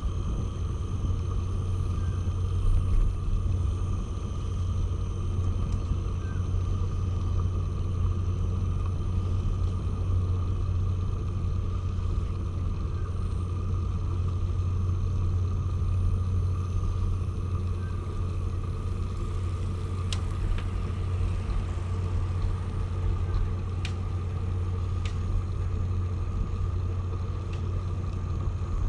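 Steady low rumble of wind buffeting the microphone while cycling, with a few faint clicks in the last third.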